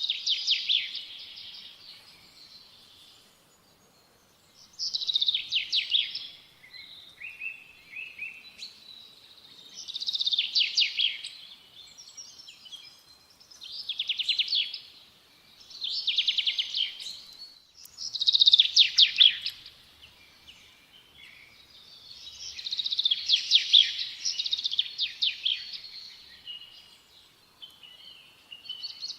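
A songbird singing: repeated short, trilled phrases, each a second or two long, with brief pauses between them.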